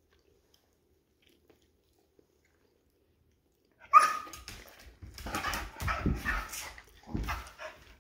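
A dog gives one sudden, sharp bark about four seconds in, then a noisier run of barking and vocalising that lasts about three seconds.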